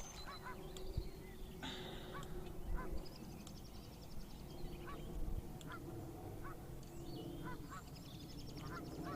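Geese honking on the lake in short, repeated calls, with higher trills from smaller birds over a steady low rumble of wind and water.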